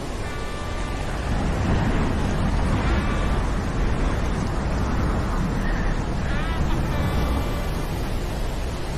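Storm sound effect: a steady low rumbling wash of noise. Over it a crow caws in short runs three times, near the start, about three seconds in and again around six to seven seconds in.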